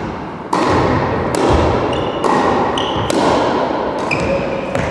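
Tennis balls struck by rackets and bouncing on a wooden sports-hall floor in a rally, a sharp crack about once a second, each ringing out in the hall's echo. A few short high squeaks come between the hits.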